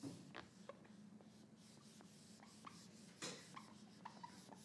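Faint whiteboard eraser wiping across the board in short strokes, with one louder stroke about three seconds in.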